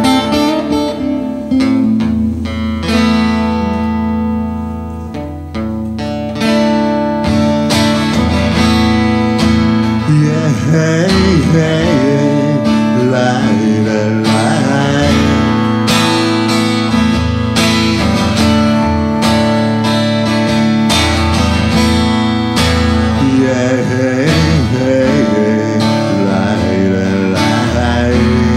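Solo acoustic guitar played live, picked and then strummed, with a man's singing voice coming in about ten seconds in.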